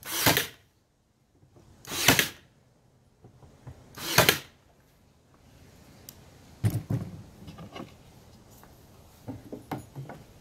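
Ryobi 18-gauge cordless brad nailer firing three times, about two seconds apart, each shot lasting about half a second. Then lighter scattered knocks and clicks.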